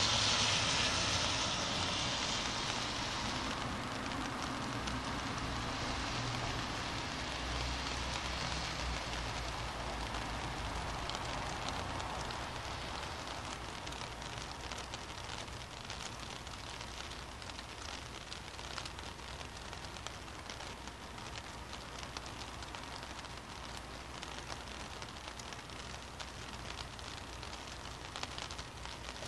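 Steady rain falling on a city street, with many small drops pattering close by. At the start a vehicle's tyres hiss on the wet road and fade within a few seconds, and a low traffic rumble swells briefly a quarter of the way in.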